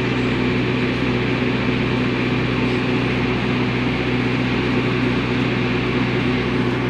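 Steady mechanical hum: a constant low drone with a few held tones under an even hiss, as of a machine running without change.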